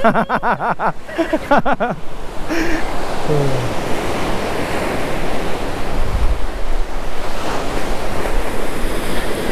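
Ocean surf breaking and washing up the beach, with wind on the microphone and a low swell about six seconds in. A brief voice-like sound comes in the first two seconds.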